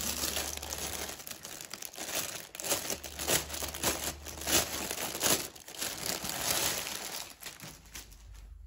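Clear plastic packaging bag crinkling and rustling as it is handled and a folded T-shirt is pulled out of it; the crackling dies away near the end.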